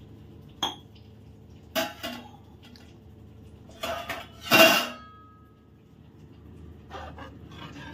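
Metal kitchen utensils clinking against a kadai: a few sharp clinks, the loudest about halfway through with a short metallic ring after it. Near the end a spatula knocks in the pan as stirring of the water and vegetables begins.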